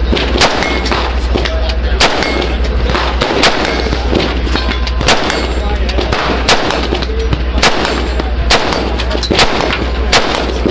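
A string of about nine single rifle shots from an Adams Arms piston-operated AR-style rifle, fired deliberately roughly one every second or so. Fainter shots from other guns on the range fall between them.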